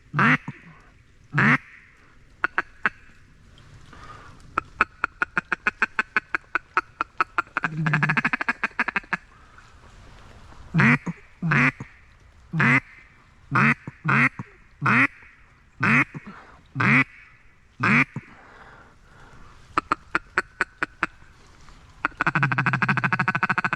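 Mallard quacks blown close by on a duck call to draw in a circling mallard: single quacks, runs of rapid feed chatter, a series of about eight evenly spaced quacks, then long drawn quacks near the end.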